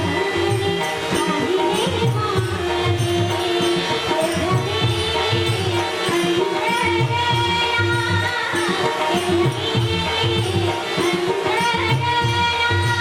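Indian-style song: a girl's singing voice with wavering, ornamented lines over steady held tones and a regular drum beat.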